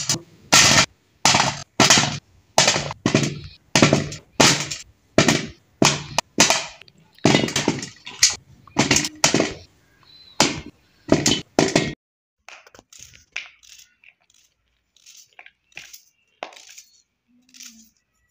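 Peeled turnips dropped one after another into a metal bowl, each landing with a ringing clank, one or two a second. About twelve seconds in, these stop and give way to quieter small clicks and scrapes of a knife peeling an onion over a plastic bowl.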